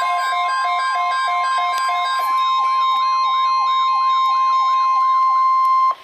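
Reecom weather alert radio sounding a tornado watch alert: the steady 1050 Hz NOAA Weather Radio warning tone under a repeating stepped electronic tune. About two seconds in, the tune changes to a warbling siren of about two and a half sweeps a second. All of it cuts off suddenly near the end.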